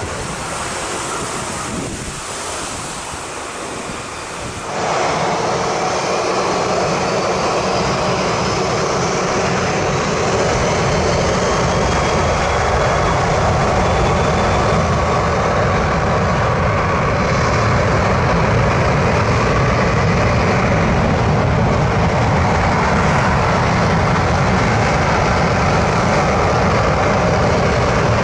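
Surf and wind at first. About five seconds in, the sound jumps to the loud, steady noise of a McDonnell Douglas MD-80-series jetliner's rear-mounted turbofans running up to takeoff thrust, with a whine rising in pitch. The jet blast blows sand and spray across the beach.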